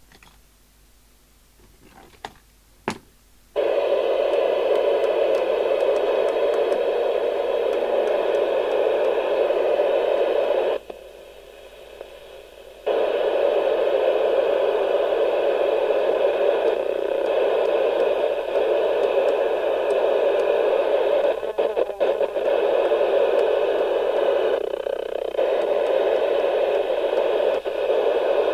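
Maxcom 4E FM CB radio's loudspeaker hissing with receiver noise, the squelch open on an empty channel. A couple of clicks come first, the hiss cuts in suddenly a few seconds in, drops out for about two seconds near the middle, and a few more clicks sound later on.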